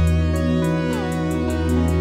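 Background music: sustained instrumental tones over a steady bass, with a light tick about four times a second.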